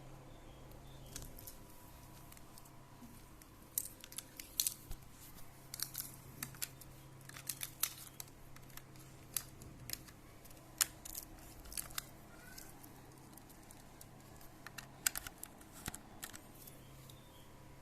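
Irregular sharp clicks and taps of a plastic laptop case and small parts being handled, coming in quick clusters from about four seconds in, over a faint steady hum.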